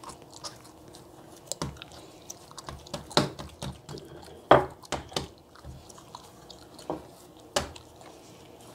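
Hands squeezing and pressing a ball of soft dough flat on a floured countertop: sticky squishing handling sounds with scattered sharp taps, the loudest about four and a half seconds in.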